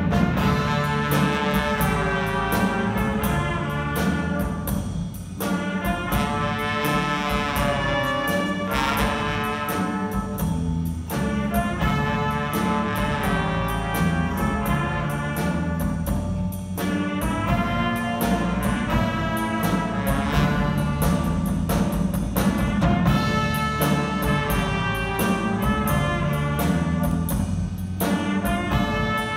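Live band with a horn section playing: saxophones, trumpets and trombone carry the tune over a drum kit, keyboard and electric guitar, with a steady drum beat.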